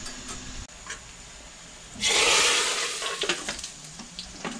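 Hot oil with cumin seeds and garlic poured into a pot of cooked dal. A loud sizzle starts suddenly about two seconds in and fades over about a second and a half, followed by a few light clicks: the dal being tempered (chunkay).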